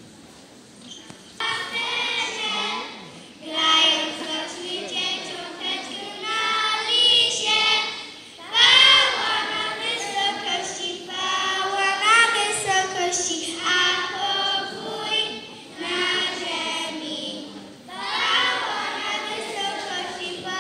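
A group of children singing together as a choir, in phrases with short breaks between them, beginning about a second and a half in.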